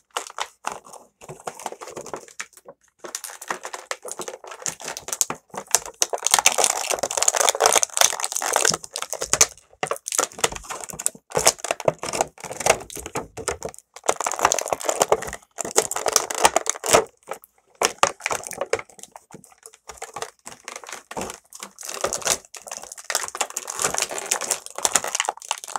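Stiff clear plastic packaging tray crackling and crinkling in the hands, in irregular bursts of rustling with sharp clicks, as an action figure is worked out of it with some difficulty.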